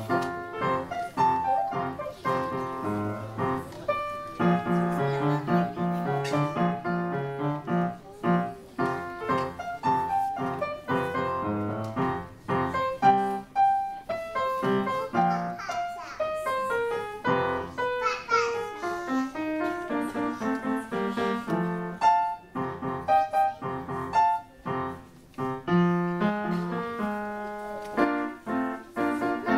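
Upright piano played solo: quick runs of separate notes with short breaks between phrases.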